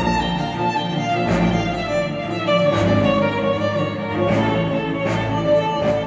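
Music with violin and bowed strings holding sustained chords, played back through KEF Q350 bookshelf speakers powered by an Audiolab 6000A integrated amplifier.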